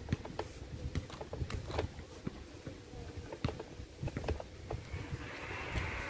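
Footsteps on paving stones at a walking pace, about two steps a second, over a faint steady tone. A soft hiss comes in near the end.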